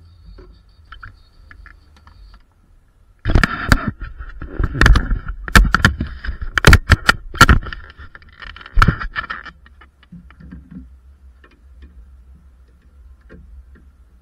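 Close handling noise: a run of loud knocks, thuds and scraping rattles lasting about six seconds, starting about three seconds in, as the camera is picked up and moved around the car.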